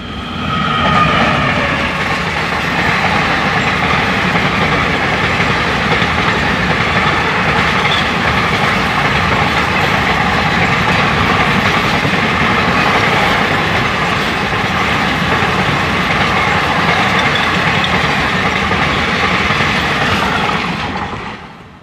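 A passenger train passing close at speed: the horn of the WAP-5 electric locomotive dies away in the first couple of seconds, then the steady noise of the coaches' wheels running over the rails, fading near the end.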